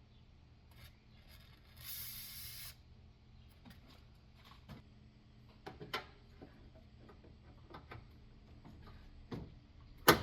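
A short hiss of WD-40 Specialist Penetrant sprayed from its aerosol can for under a second, about two seconds in. Scattered clicks and knocks follow as the metal hood prop rod is worked into its rubber grommet, the loudest a sharp click near the end.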